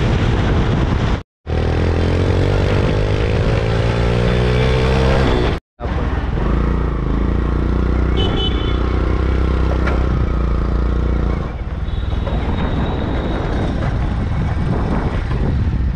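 Motorcycle engine running on the move through city traffic, with road and wind noise. It rises in pitch as the bike speeds up, then holds steady. The sound drops out briefly twice, about a second in and again near six seconds.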